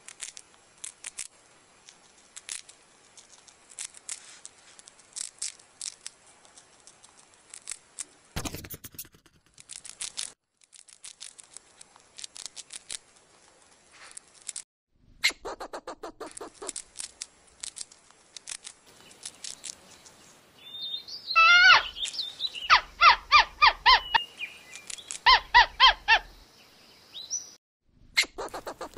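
Quick, irregular crunching clicks of a chipmunk gnawing peanuts. Later comes a palm squirrel calling: loud, high, bird-like chirps, several a second, in two runs. These chirps are the loudest sound.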